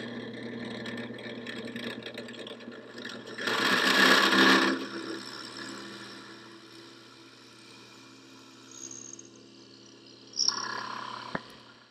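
Benchtop drill press running with a steady motor hum while its twist bit bores into a pine board. The cutting is loudest about four seconds in, then the hum goes quieter, with a second short burst of cutting and a click near the end.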